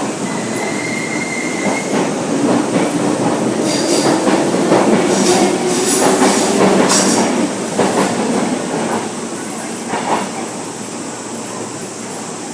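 Two coupled Kintetsu 6820 series electric trains pulling away. The motor tone rises slowly as they gather speed, the wheels click over rail joints, and the sound fades near the end.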